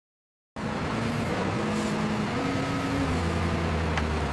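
Engine of heavy log-handling machinery running steadily with a low hum, cutting in abruptly about half a second in after dead silence.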